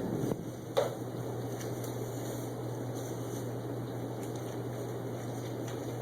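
Steady hiss of heavy thunderstorm rain, with a constant low hum underneath and a single sharp click a little under a second in.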